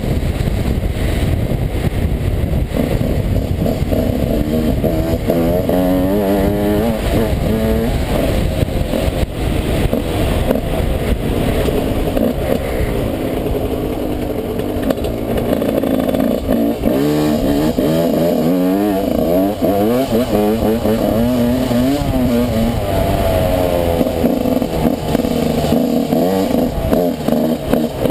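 Yamaha YZ125 two-stroke single-cylinder engine revving while being ridden, its pitch rising and falling over and over as the throttle opens and closes.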